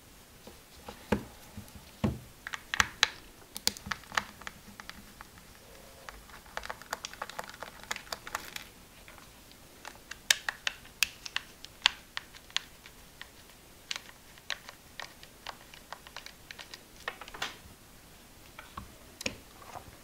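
Small screwdriver prying and scraping at the plastic housing of a cordless rotary multitool to open it, with irregular clicks, taps and scratches of metal on plastic and of the tool being handled.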